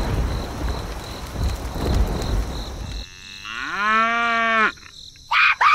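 Rain falling for about three seconds, then a cow mooing: one long moo of about a second, followed by a shorter falling call at the end.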